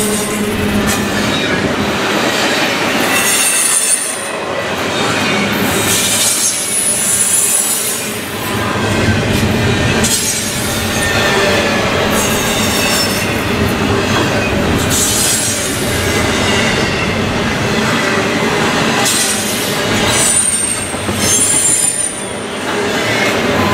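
Double-stack container well cars of a fast freight train rolling past close by: a steady loud rumble and rattle of steel wheels on rail, with brief high-pitched wheel squeals several times.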